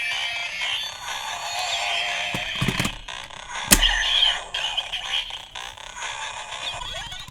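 Bandai DX Bugster Buckle toy belt with the Dangerous Zombie Gashat playing its electronic henshin sound effects and music, with one sharp click about halfway through.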